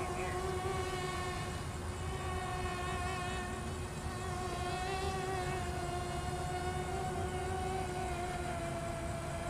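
Twin 2204 2300KV brushless motors with Gemfan 6x4.5 propellers on a flying-wing RC plane in flight: a steady propeller whine that wavers a little in pitch and sags slightly lower near the end.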